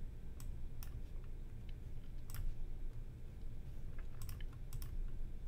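Computer mouse clicking: a handful of short, sharp clicks at uneven intervals, some in quick pairs, over a low steady hum.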